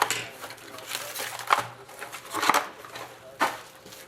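Trading-card box packaging being handled and opened by hand: rustling, crinkling and scraping, with four louder bursts about a second apart.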